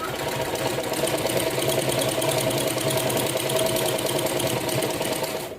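USHA straight-stitch sewing machine running steadily, stitching fabric with a fast, even needle rhythm, then stopping abruptly near the end.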